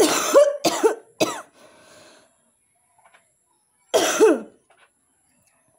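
A woman coughing: three quick coughs in a row, then a single cough about four seconds in. It happens while a cotton bud is in her ear canal, and touching the ear canal can set off a cough reflex.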